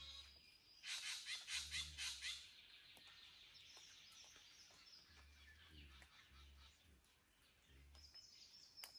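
Wild forest birds calling at dawn: a quick run of about seven harsh, loud notes about a second in, followed by a softer high chattering trill that fades out, and a thin high whistle near the end.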